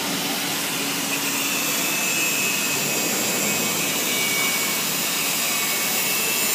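Steady, loud hissing noise of workshop machinery in a locomotive repair shop, with a faint high whine running over it.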